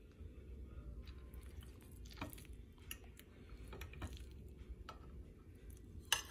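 Faint clinks of a metal fork against a white ceramic dinner plate, a handful of light taps spread out and one sharper clink near the end, over a low steady hum.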